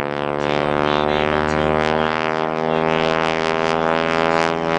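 Pratt & Whitney R-985 nine-cylinder radial engine of a Boeing Super Stearman biplane running in flight, a steady propeller drone whose tone shifts slightly as the aircraft moves.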